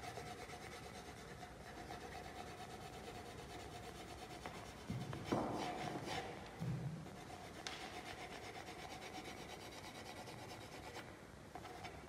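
Graphite pencil shading on paper on a drawing board: quiet, continuous scratchy rubbing of hatching strokes, louder for a moment about halfway through.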